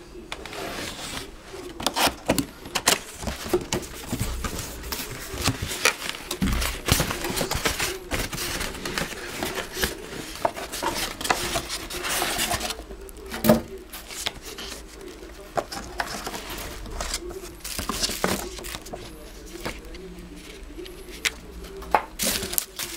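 Cardboard box and styrofoam packing insert being handled and pulled apart by hand, with plastic wrapping rustling: irregular scrapes, rustles and knocks, the sharpest knock about halfway through.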